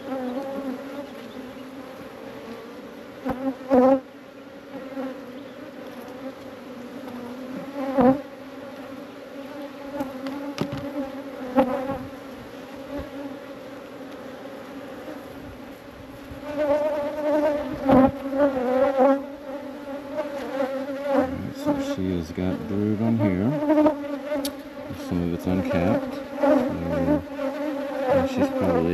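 Honey bees buzzing in a steady hum around an opened backyard hive, with a few sharp knocks in the first half. The buzzing grows louder about halfway through.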